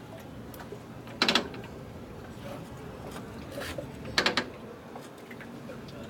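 Sharp metallic clacks from a 1953 Harley-Davidson panhead's kick-start lever and its mechanism as the engine is turned over slowly by hand, without firing, to find the cylinders' timing point. There is a loud double clack about a second in, a fainter one past the middle, and another loud double clack just after it.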